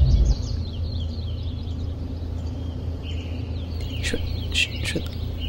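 Outdoor ambience of small birds chirping over a steady low rumble, with a few sharper, louder chirps about four to five seconds in.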